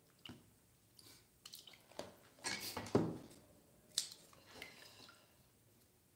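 Kitchen scissors and a cleaver being handled on a plastic cutting board: scattered clicks and knocks, with a louder scrape about three seconds in.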